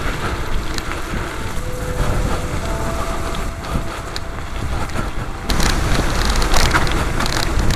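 Mountain bike rolling over a gravel and dirt track: tyres crunching on the stones, the bike rattling over bumps, and wind on the microphone. It turns louder and rougher about five and a half seconds in.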